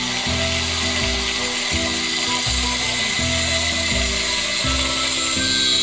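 Handheld angle grinder running with its disc against a steel shaft, a steady high whine and grinding hiss, over background music with a steady beat.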